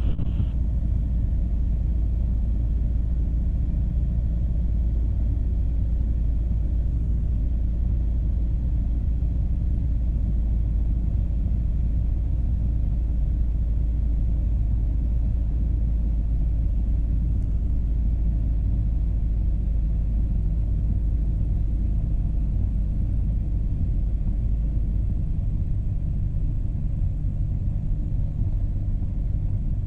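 Motorglider's engine and propeller droning steadily in flight, heard inside the cockpit as a constant low hum with a little wind noise.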